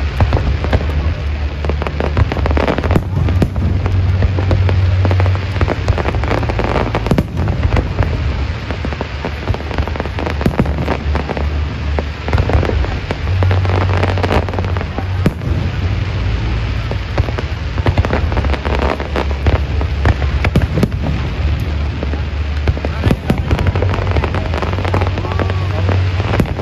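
Aerial fireworks display: a dense run of shell bursts and bangs, one after another, over a steady low rumble.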